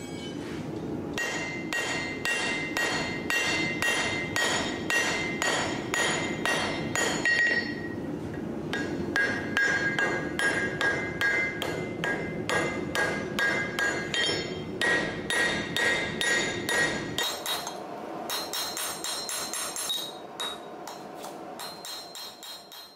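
Hand hammer forging red-hot leaf-spring steel on an anvil: steady blows at about three a second, each with a bright metallic anvil ring, over a steady low rumble. The hammering pauses briefly about eight seconds in, and the ring takes on a different pitch in the last few seconds.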